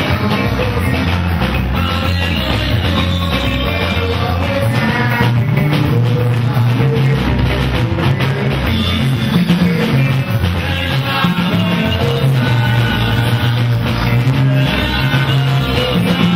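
Live band music: electric guitars, bass and a drum kit playing a steady groove, with a man's lead vocal singing at the microphone.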